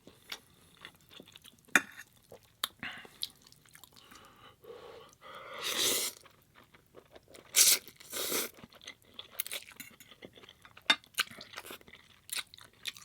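A person chewing and crunching food close to the microphone, with scattered short mouth clicks and two louder crunchy stretches about six and eight seconds in.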